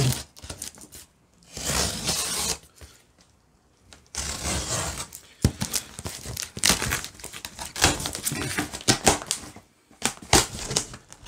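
Packing tape being slit and ripped off a cardboard shipping box, the flaps pulled open and the crinkled paper packing inside rustling. There is one short burst about two seconds in, then a brief pause, then a long run of tearing and crackling rustle.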